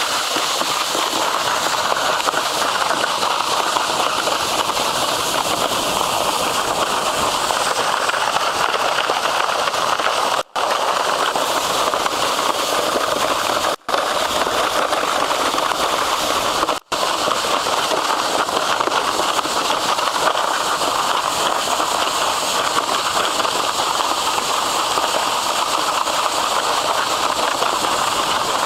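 Stiga snow racer's plastic skis hissing and scraping over packed snow during a fast downhill run: a steady, crackly rush of noise. The sound cuts out briefly three times in the middle.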